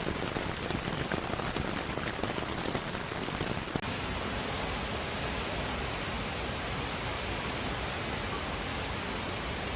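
Rain falling, a dense patter of drops. About four seconds in it cuts suddenly to a steady, even hiss.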